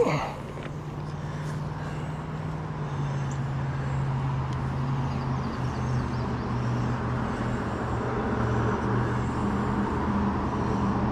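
A motor vehicle's engine humming steadily, slowly growing louder, with a sharp knock at the very start.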